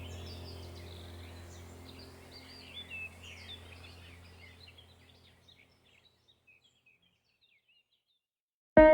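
Birds chirping over a low steady hum, fading out over about five seconds into silence. Plucked guitar music starts right at the end.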